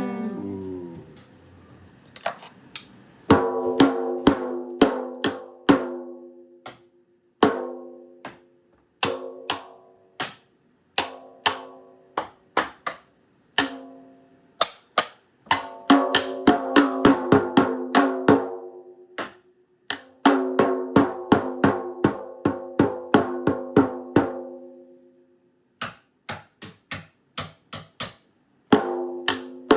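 A snare drum struck by hand in loose, irregular runs of hits with short pauses between them. Each stroke rings on with a clear pitch.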